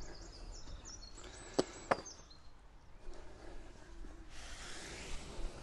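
Handling noises from gear on a lawn: two sharp clicks about a third of a second apart a little over a second in, and a second of rustling near the end, over faint bird chirps.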